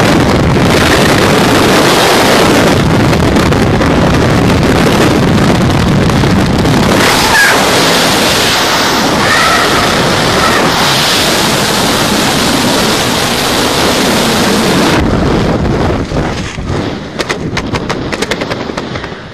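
Freefall wind rushing loudly over the camera microphone during a skysurf jump. About fifteen seconds in it drops and turns into uneven, buffeting gusts.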